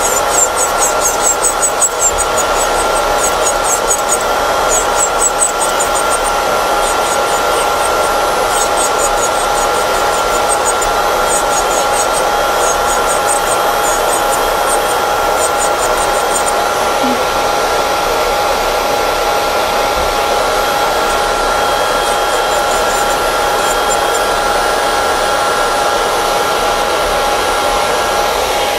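A nail dust collector's fan running steadily with a constant hum, joined for the first half by the scratchy ticking of an electric nail drill bit grinding old product off the fingernails.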